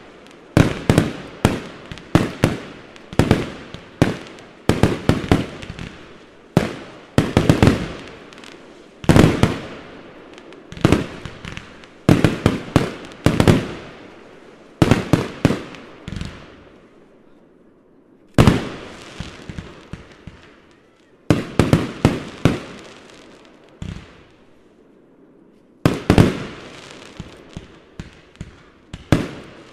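Aerial fireworks going off in rapid volleys of loud bangs, each trailing off in an echo, with two short lulls in the second half.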